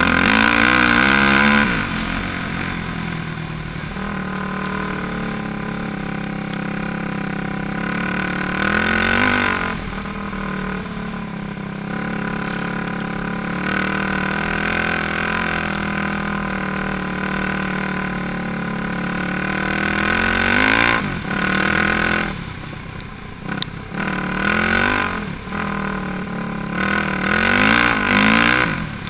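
Yamaha YFZ450 quad's single-cylinder four-stroke engine running under way, held steady for long stretches and revved up several times: at the start, about nine seconds in, around twenty-one seconds, and in a run of quick blips near the end.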